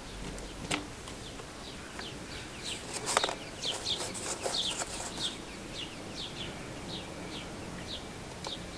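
A bird singing a run of short, falling chirps, about three a second, from about two and a half seconds in for about five seconds. A few sharp clicks, the loudest about three seconds in, come from a small video camera being fitted into its plastic clamp.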